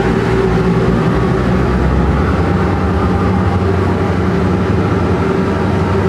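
Ship's engines running under way: a steady low drone with a constant hum, the lowest rumble thinning a little about two seconds in.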